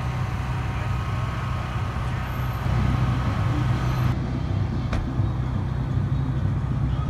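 A motor vehicle's engine idling, a steady low rumble.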